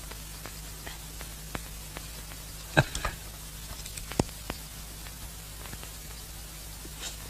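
Hiss and crackle of a worn old film soundtrack over a low steady hum, with a few sharp knocks around three to four seconds in.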